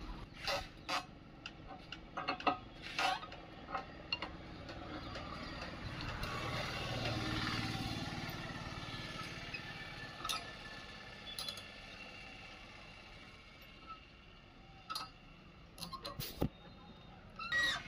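Scattered metal clinks and knocks from tools and parts being handled, with a motor vehicle passing by that grows louder to a peak about seven seconds in and then fades.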